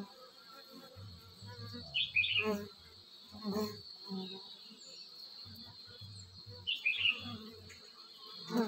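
Honeybees buzzing as they come and go at their nest entrance in a hollow tree trunk, over a steady high-pitched insect drone. A bird chirps twice, about two seconds in and again near seven seconds.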